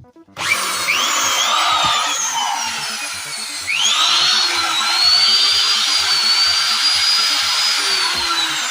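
CM4 electric tile/marble cutter motor switched on about half a second in, its whine rising in pitch. About three and a half seconds in it revs up again, louder, and settles into a high steady whine, with background music underneath.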